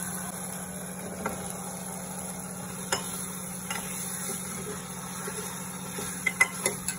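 Pumpkin cubes going into a pressure cooker and being stirred with a ladle: a few scattered clinks and knocks of the ladle and pieces against the metal pot, with a louder quick cluster of clinks near the end, over a steady low hum.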